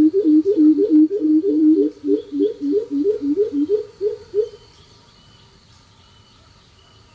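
Greater coucal calling: a fast series of deep, hollow hooting notes, several a second, in two interleaved pitches, which stops about four and a half seconds in. A faint thin high tone and a few small high chirps remain after it.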